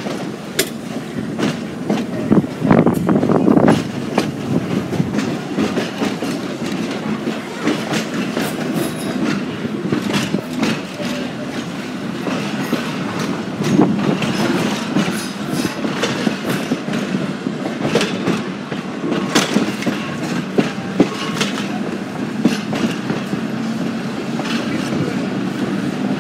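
Chicago Aurora and Elgin electric interurban car rolling along jointed track, with a steady running rumble and the wheels clicking over the rail joints.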